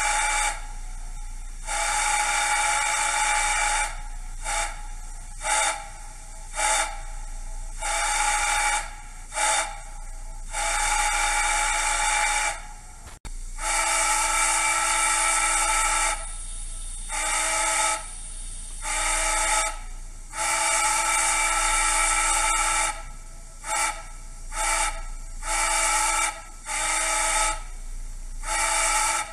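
A TCS WOW101 Steam V4 DCC sound decoder plays a Hancock-style three-chime steam whistle through a model locomotive's small factory speaker. It gives a series of long and short blasts of a deep chord, with steam hiss between them. About 13 seconds in, after a brief break, it switches to a second sample, a World War II-era three-chime whistle, blown in the same pattern of long and short blasts.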